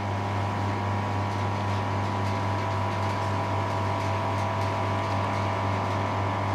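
Electric vacuum pump of a negative pressure wound therapy machine running with a steady hum. It is drawing the pressure in its tubing and drainage bottles down toward the set level.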